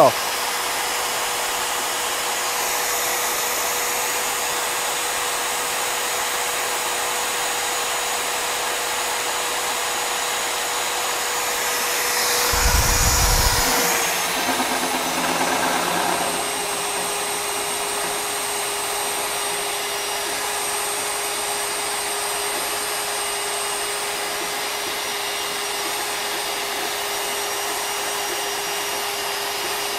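Champion SmartBrute SB35 magnetic drill's motor running with a steady whine while it self-feeds an annular cutter into steel. About 13 seconds in there is a brief louder rumble, and after it the whine settles slightly lower in pitch as the cutter cuts, throwing off steel chips.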